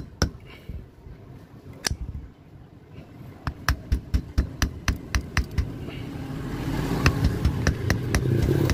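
Quick, sharp metallic taps on a metal rod set in the empty slots of a stripped electric motor stator, about four to five a second, pausing for a few seconds early on with one tap in the gap. A low rumble builds beneath the taps over the last few seconds.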